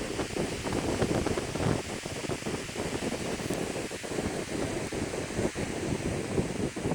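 Strong wind buffeting the microphone: an uneven rumbling rush with constant gusty flutter.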